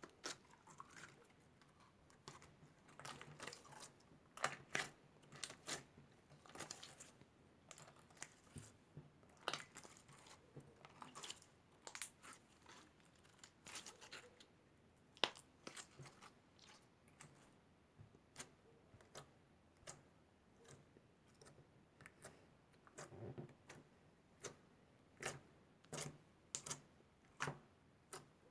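Pink slime squished and stretched by hand, giving faint irregular clicks and crackles, several a second.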